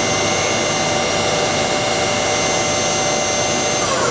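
Subspindle of a Doosan Puma 2000SY CNC turning center spinning at 3000 RPM, a steady whine of several tones over an even mechanical hiss.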